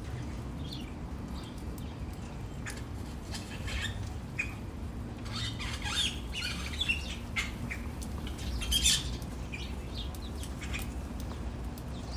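A flock of small birds at a bath, giving many short chirps and squawks with wing fluttering; the calls come thickest in the middle, with the loudest near the end.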